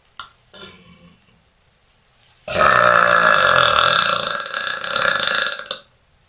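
A woman's long, loud burp lasting about three seconds, coming after a brief click and a short, quieter sound near the start.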